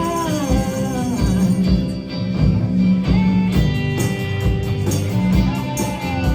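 Live indie pop band playing: electric guitars with bending notes over bass and drums keeping a steady beat.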